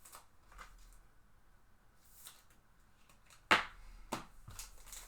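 Trading cards and pack wrappers being handled: faint rustles, then a sharp snap about three and a half seconds in followed by a few lighter clicks.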